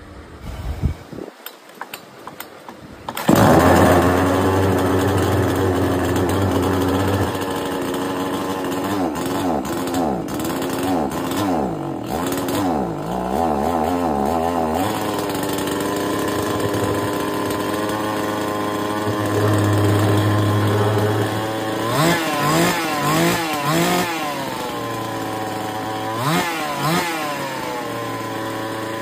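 62cc two-stroke chainsaw engine starting about three seconds in, after a few faint knocks. It then runs steadily and is revved up and down in quick blips, once around the middle and again near the end.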